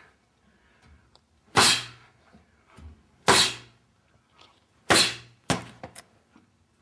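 Uppercuts smacking a leather focus mitt: three loud smacks about a second and a half apart, then a lighter hit, with a short ring of the room after each.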